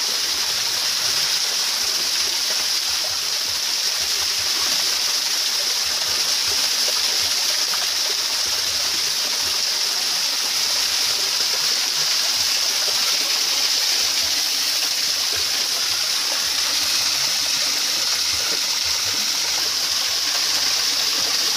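Steady, unbroken rushing of flowing river water.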